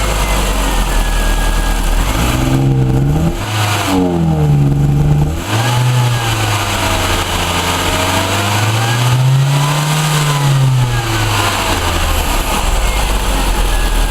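Ford Orion's Zetec four-cylinder petrol engine idling and being revved: two quick throttle blips about two and four seconds in, then a slower rise and fall of revs a few seconds later before it settles back to idle. The engine has a misfire.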